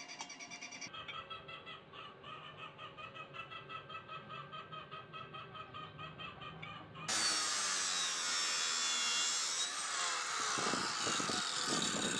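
Abrasive cut-off saw cutting a flat steel bar: it starts abruptly about seven seconds in and is the loudest sound, a dense grinding noise with a whine that falls in pitch as the motor slows under the load of the cut. Before it there is a quieter rhythmic pulsing, about four beats a second.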